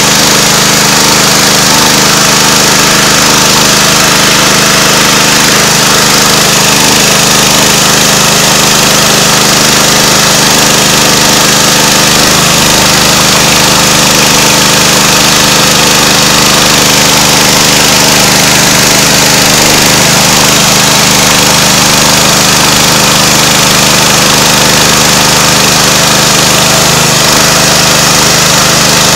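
A homemade chainsaw mill's engine running steadily under load as its full-chisel chain rips lengthwise through a poplar cant. The engine note is loud and even over the hiss of the cut, with no change.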